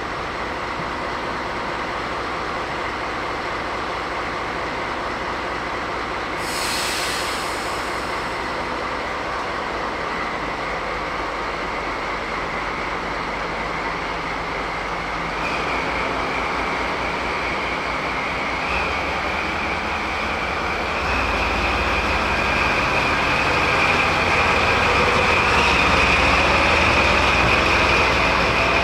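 DD16 diesel-hydraulic locomotive running, with a short hiss about six and a half seconds in. It then moves off, a high steady whine coming in about halfway, and gets louder as it pulls away past.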